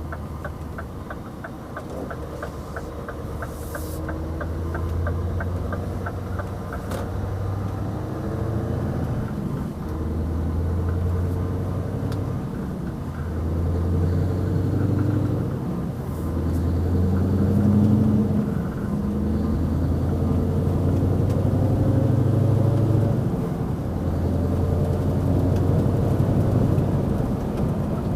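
Scania 770S's 16-litre V8 diesel running under load while the truck is driven, its low note rising and falling in stretches of a few seconds with brief dips between. A rapid, even ticking runs through the first several seconds.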